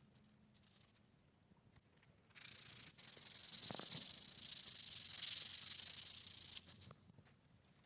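Steel knife blade being ground or sanded against an abrasive: a steady high hiss that starts about two seconds in, dips briefly, then runs about four seconds before stopping sharply.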